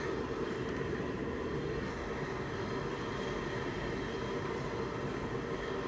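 Steady low rumbling noise, even throughout, with no distinct knocks or clinks.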